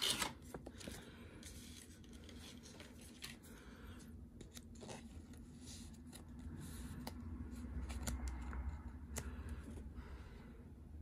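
A Pokémon trading card being worked into a clear plastic card sleeve and handled: soft plastic rustling with scattered small clicks, the sharpest right at the start.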